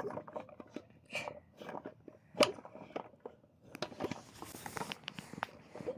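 Hand-cranked NGT portable boilie grinder crunching hard 18 mm boilies into crumb: irregular cracks and crunches as the blades bite through them, one louder crack about two and a half seconds in.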